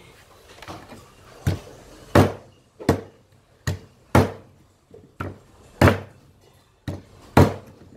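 A heavy knife chopping through snake meat and bone on a cutting board: about ten sharp chops, unevenly spaced.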